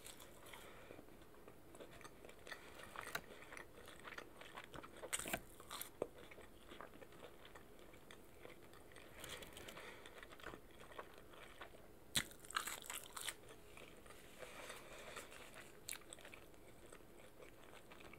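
A person quietly chewing and biting into boneless chicken wings close to the microphone, with a few louder crunching bites: one about five seconds in and a cluster about two-thirds of the way through.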